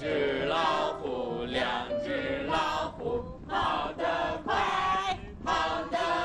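A group of children's voices chanting together in unison, in short phrases about a second apart with brief gaps between them.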